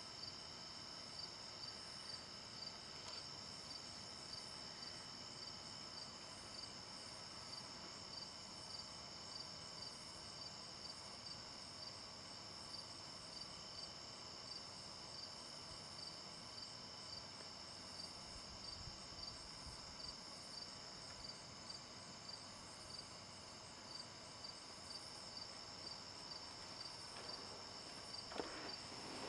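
Night chorus of crickets: a steady high-pitched trill with regular pulses about twice a second. A louder, broader noise rises near the end.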